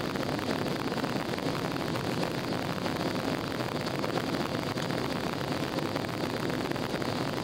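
Steady jet engine and airflow noise inside an airliner's passenger cabin during the climb after take-off, an even rush with no changes.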